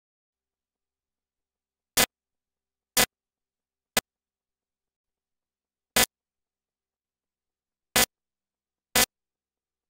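Dead silence broken by six short, loud clicks, spaced one or two seconds apart.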